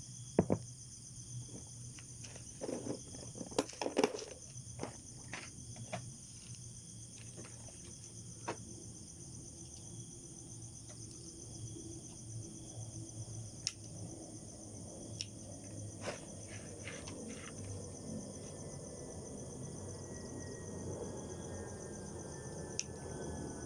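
Insect chorus: a steady high-pitched trilling that runs on throughout. Scattered sharp knocks and clicks sound over it, the loudest about half a second in and about four seconds in.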